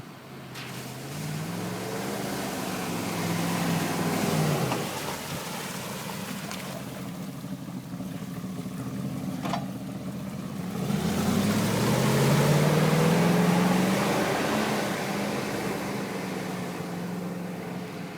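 Range Rover P38 engine revving up and easing off twice as the truck ploughs through water, with a rush of spray that is loudest in the second push.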